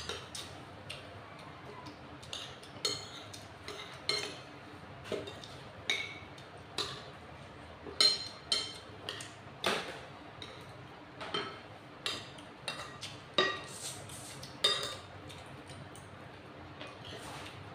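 Metal spoons and forks clinking and scraping against plates and bowls while eating: irregular sharp clinks, often close together, thinning out near the end.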